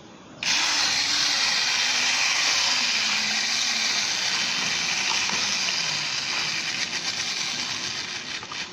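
Clockwork wind-up motor from a toy car, released about half a second in, whirring steadily through its gears as the spring unwinds. The whirr slowly fades and grows uneven near the end as the spring runs down.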